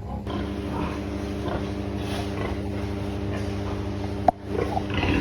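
Pigs grunting over a steady mechanical hum, with a sharp click about four seconds in.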